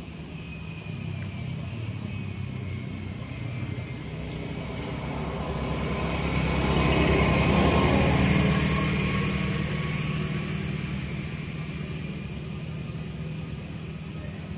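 A motor vehicle passing by: its engine hum and tyre noise grow louder to a peak about halfway through, then fade away.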